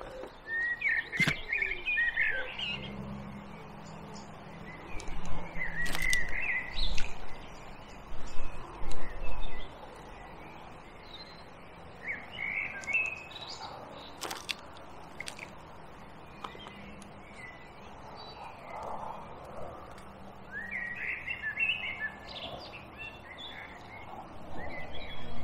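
Small birds chirping and twittering in short bursts, four times, over a quiet outdoor background. There are a few sharp clicks and a faint low hum underneath.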